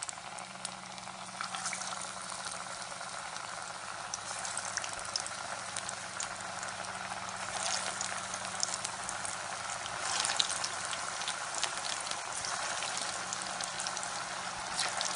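Raw papaya and gram flour koftas deep-frying in hot oil in a pan: a steady sizzle full of small crackling pops. It grows louder and busier about halfway through as more koftas fill the oil.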